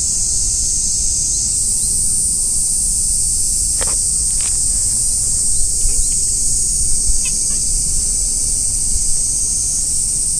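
Steady high-pitched chorus of insects, over a low rumble of wind on the microphone, with a few brief faint sounds around four and seven seconds in.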